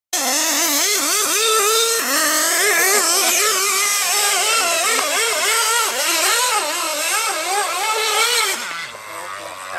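RC off-road car's motor revving up and down rapidly as the car is driven across sand and up a slope, the pitch swinging constantly with the throttle; the sound drops off and fades near the end.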